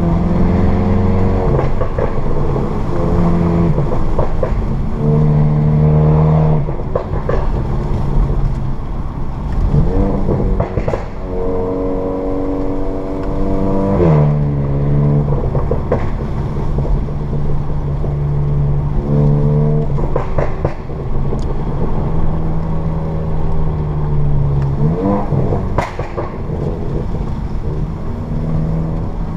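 2015 VW Mk7 GTI's turbocharged four-cylinder, with an APR Stage 2 crackle tune and Borla S-Type cat-back exhaust, running under way; the engine note climbs and drops back several times with gear changes. A few short sharp exhaust pops sound near the middle and near the end.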